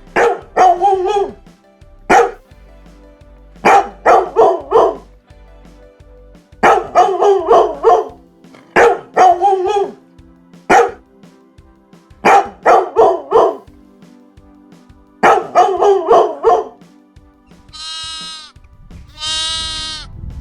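A dog barking in quick runs of several sharp barks, with short pauses between the runs. Near the end come two drawn-out bleats.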